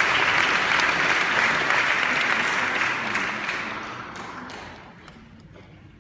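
Concert hall audience applauding. The applause dies away from about three seconds in, ending in a few scattered last claps.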